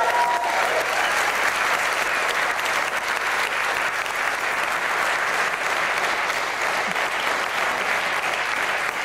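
Studio audience applauding steadily, with a voice calling out briefly at the very start.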